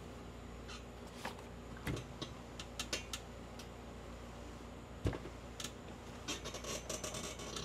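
Sounds of ironing clothes at an ironing board: scattered light clicks and taps, two soft thumps about two and five seconds in, and a quick flurry of clicks and rustling near the end, over a steady low hum.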